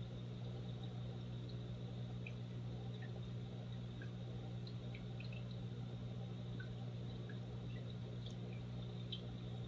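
Aquarium filter running: a steady low hum with faint, scattered plinks of dripping or bubbling water.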